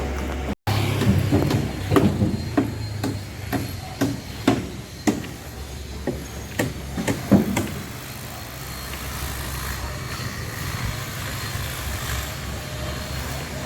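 Excavator's diesel engine running under a run of about a dozen sharp knocks and clanks from its working bucket and load over the first several seconds. After that the engine drone goes on steadily.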